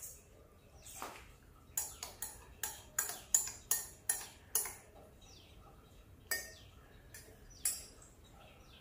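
A spoon stirring tea in a stemmed glass, clinking against the glass about a dozen times. The clinks come in a quick run of about two a second, then three more spaced out near the end.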